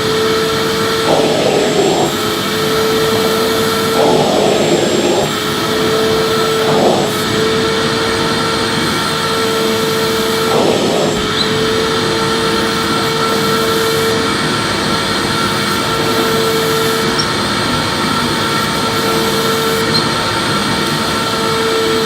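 Electric vacuum cleaner running steadily with a whine, with short rushes a few times in the first half as the nozzle is swept over the floor.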